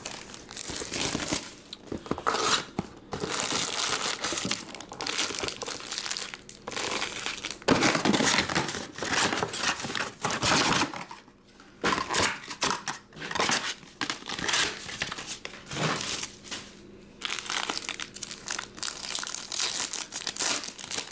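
Shrink-wrap and packaging of a sealed trading-card box crinkling and tearing as it is opened, then foil Panini Prizm card packs handled and torn open near the end, in irregular crackling bursts.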